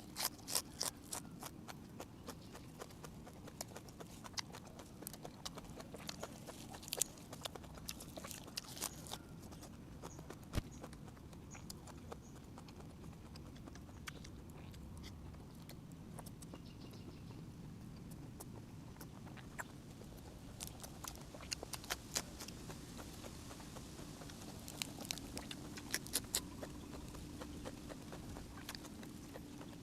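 Close-miked eating: chewing with scattered wet mouth clicks and smacks, bunched in spells near the start and again later, over a faint low steady hum.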